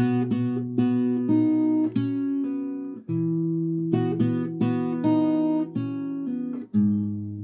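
Acoustic guitar played fingerstyle: a chord-melody phrase of plucked single notes over ringing bass notes and open strings, each note ringing on into the next.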